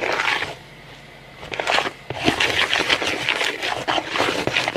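Fluffy slime being stirred in a bowl as the borax activator is mixed in: irregular sticky crackling and clicking, with a short lull about half a second in.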